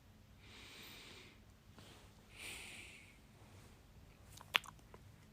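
Two slow, soft breaths close to the microphone, the second a little louder, then a single sharp click about four and a half seconds in.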